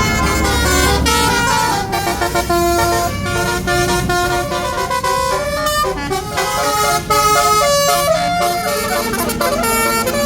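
Tour bus basuri musical horn playing a tune: a string of held notes from a set of tuned horns, several sounding together and stepping from pitch to pitch. A low rumble lies under the first second or so.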